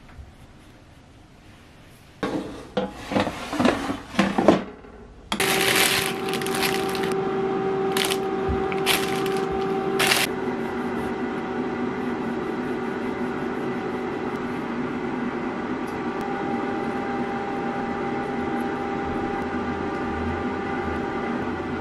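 A few knocks and clatter of kitchenware, then a kitchen oven starts running about five seconds in with a steady hum of several fixed tones. A plastic bag rustles a few times over the hum.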